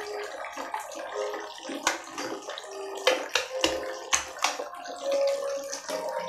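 Water splashing and sloshing in a plastic tub as an otter plays in it, with a run of sharp splashes between about two and four and a half seconds in.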